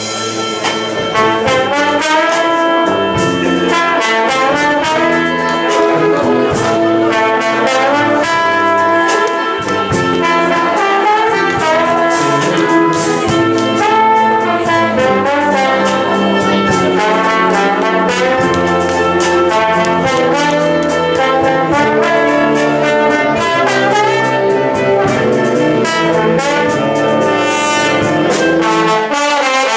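A wind band of saxophones, brass and woodwinds, with a tuba on the bass line, playing a piece together; the band strikes up right at the start and plays on at full, steady volume.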